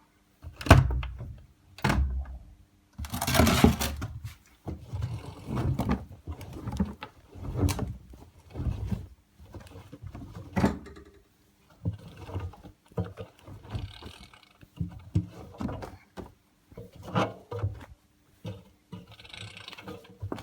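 AEG Öko-Lavamat 74780 washing machine giving a run of irregular dull thumps and clunks, about one a second, over a faint steady hum. A short louder rushing clatter comes about three seconds in.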